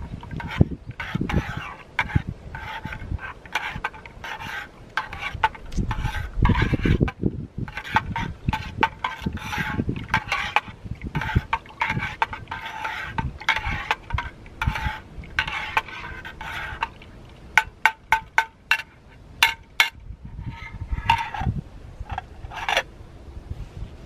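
Metal spoon stirring liquid in a metal canteen cup, scraping quickly and repeatedly against the sides and bottom so the cup rings. Later it gives way to a run of sharp single clinks of metal on metal, with a few more near the end.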